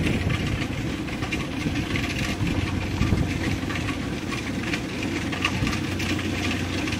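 Rice combine harvester's diesel engine running steadily with a low hum.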